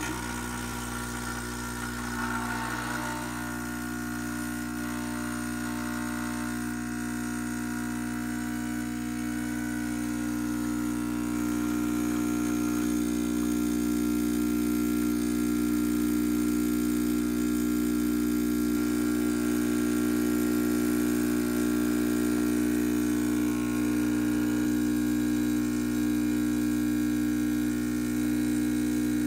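Gaggia Classic espresso machine's vibratory pump buzzing steadily as it pushes water through the portafilter to pull an espresso shot, growing slightly louder over the first ten seconds.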